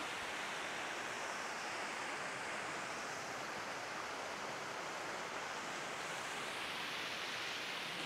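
Small waterfall running at low flow: a steady, even rush of falling water.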